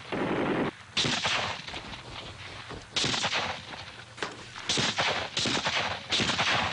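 Gunfire in a firefight: about six bursts of shots at irregular intervals, each starting sharply and trailing off.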